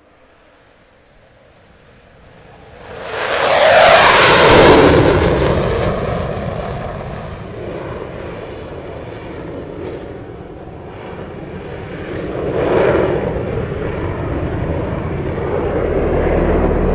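Freewing SU-35 RC jet's twin electric ducted fans making a close pass: a whoosh that swells in about three seconds in, is loudest just after, and drops in pitch as the jet goes by. The jet then runs on more distantly, with a second, smaller pass near the end.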